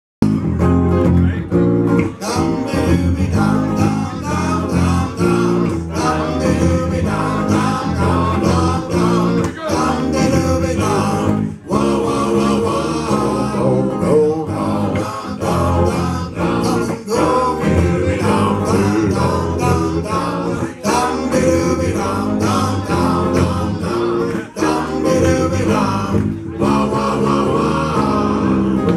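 Live band music: electric guitar and electric bass playing over a steady beat, with male lead vocals and other voices singing along.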